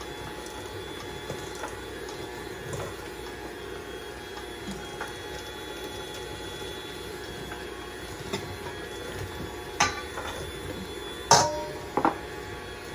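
Electric hand mixer running steadily, its beaters whisking waffle batter in a stainless steel bowl. A few sharp knocks come near the end.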